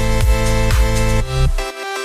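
Electronic cinematic background music with sustained chords over a heavy bass beat; the bass drops out briefly near the end.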